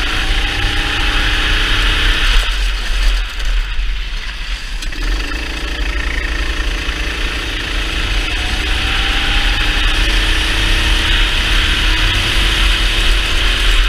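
Racing kart engine heard from the driver's seat at speed. About two seconds in the throttle is lifted and the engine note drops. From about five seconds in it accelerates again, the pitch rising steadily almost to the end.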